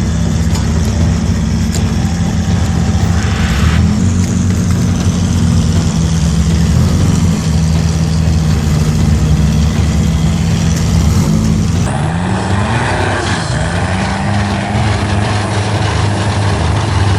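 Off-road 4x4 engines running loudly under load, the pitch rising and falling as they rev. The sound changes abruptly about twelve seconds in.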